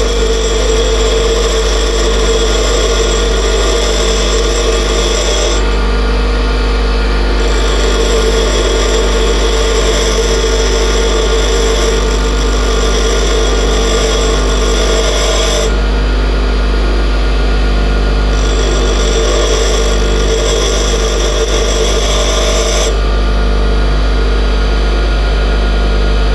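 Bench grinder motor running steadily with the hiss of a drill bit being sharpened on its wheel. The high grinding hiss drops out briefly about 6 and 16 seconds in and again near the end, while the motor hum carries on.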